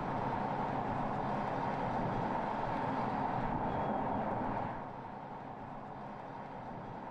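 BMW X3 M40i driving at speed: steady tyre and road noise with a low engine hum, becoming quieter about five seconds in.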